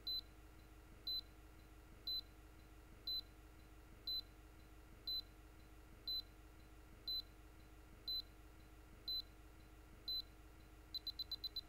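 High-pitched electronic beeps, one a second, then a quick run of about eight beeps near the end, over a faint steady hum.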